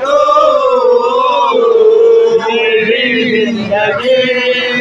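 Male voices singing an Islamic devotional song, holding long wavering notes on a drawn-out vowel without distinct words.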